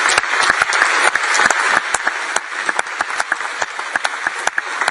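Sustained applause from a large group of people, many hands clapping at once, easing off slightly toward the end.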